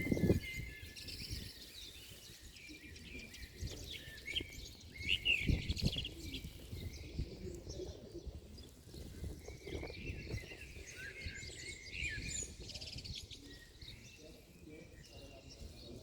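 Small birds chirping and trilling, with wind rumbling on the microphone in gusts, strongest at the start and about five seconds in.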